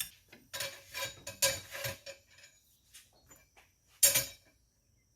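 Small metal parts clinking and rattling as they are handled on a workbench, with one louder metal clank about four seconds in.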